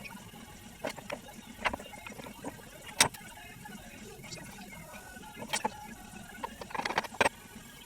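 A series of sharp clicks and knocks, as of handling tools or parts, over a low steady hum. The loudest knock comes about three seconds in, and a quick cluster comes near the end.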